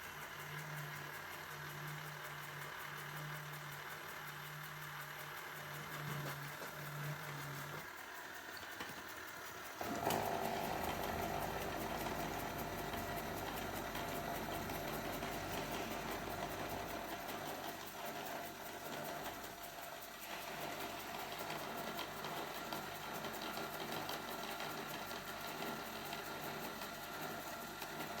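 Roomba robot vacuum running: a low pulsing hum for the first several seconds, then about ten seconds in a louder, steady motor whir with a mid-pitched whine.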